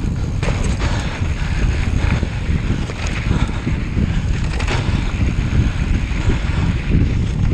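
Loud wind buffeting the microphone, a steady low rumble with a few short clicks through it.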